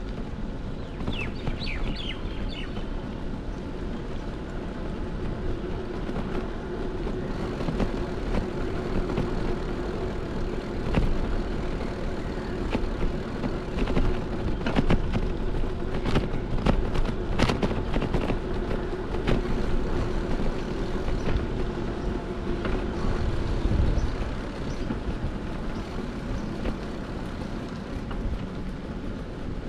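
Wind rumbling on the microphone outdoors, with footsteps tapping on brick paving, loudest in the middle. A steady low hum runs under it and stops about three-quarters of the way through, and a few high bird chirps come near the start.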